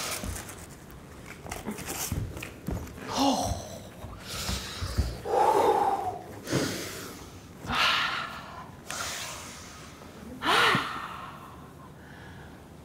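A woman's loud breaths and gasps, coming in separate bursts every second or two, some with a short voiced catch, together with a few low thumps.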